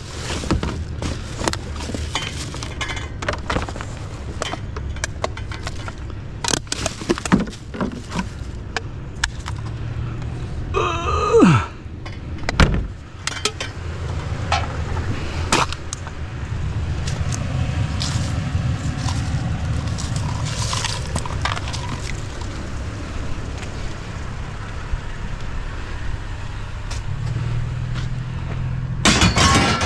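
Scattered clatter, knocks and rustling of scrap cords and metal being picked up and handled, over a steady low rumble.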